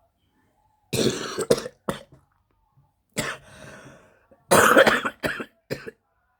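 A person coughing in three bouts of harsh, short coughs, about one, three and four and a half seconds in.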